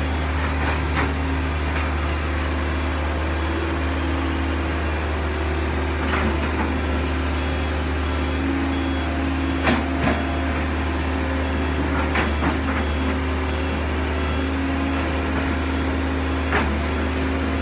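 Kobelco SK135SR excavator's diesel engine running steadily under work, with a few sharp knocks scattered through, the loudest about ten seconds in.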